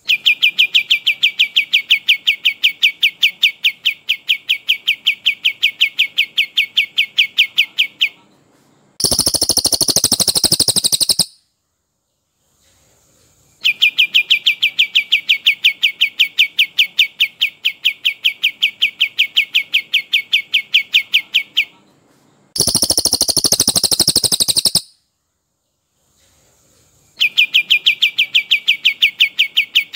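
Recorded bird song of a cililin and a kapas tembak, alternating. A long roll of rapid, evenly repeated notes runs about eight seconds at a time, twice over. Each roll is followed by a couple of seconds of a louder, higher-pitched bird song, with short silent gaps between; a third roll starts near the end.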